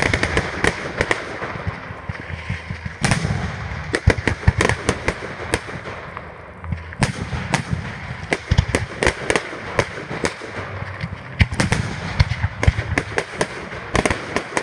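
Fireworks display heard up close: shells and effects going off in a rapid, irregular barrage of sharp bangs, several a second, with crackling between them.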